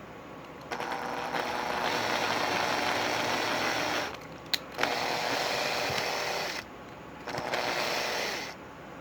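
A small electric power tool, most likely a cordless screwdriver, runs its motor in three bursts, the first about three seconds long and the next two shorter, with a sharp click between the first and second.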